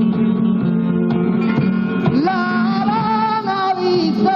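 Flamenco guitar playing, then a male flamenco singer's voice comes in about halfway through, holding long, wavering melismatic notes over the guitar.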